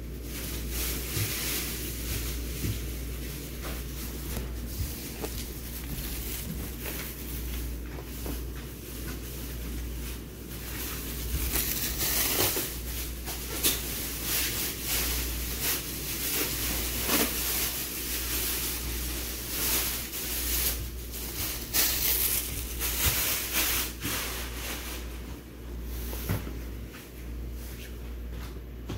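Steady low hum and hiss of room noise, with scattered soft rustles and light knocks of handling.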